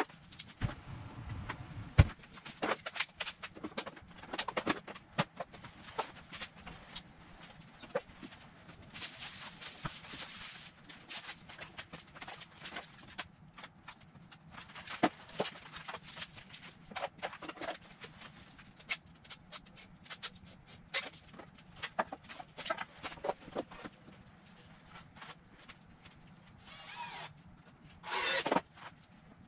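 Scattered knocks and clicks of lumber pieces being handled and set down on a wooden workbench, with a few longer rough rubbing sounds in between.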